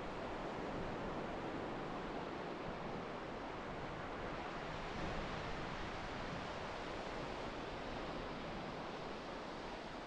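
Ocean surf breaking and washing up a sandy beach: a steady rush of waves that swells slightly about halfway through.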